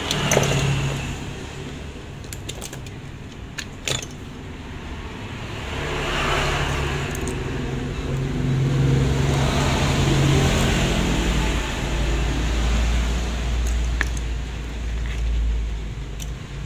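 A motor engine runs steadily in the background, growing louder through the middle. Over it are a few sharp little clicks and rustles as a nylon watch strap is handled and worked off a wristwatch.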